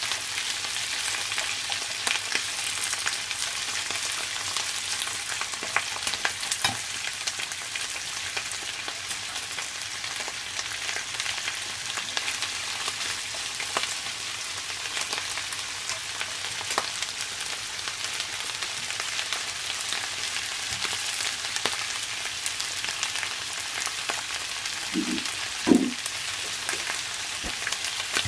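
Food stir-frying in a hot pan: a steady sizzle with light clicks of the utensil as it is stirred. Near the end come a couple of brief squeaks.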